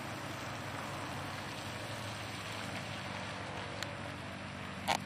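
F-16 fighter's jet engine at low power as the jet taxis on the runway, a steady hiss over a low rumble, with a sharp click near the end.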